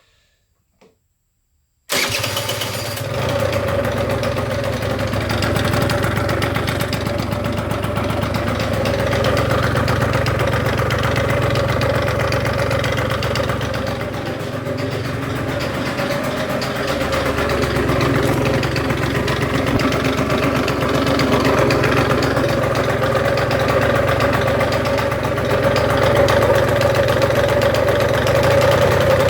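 An engine starts abruptly about two seconds in and then runs at a steady idle with a rattling noise.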